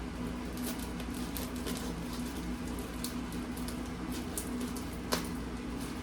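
A wrapped package being cut and pried open: scattered crinkles and small ticks of plastic and tape, with a sharper click about five seconds in. A steady low hum runs underneath.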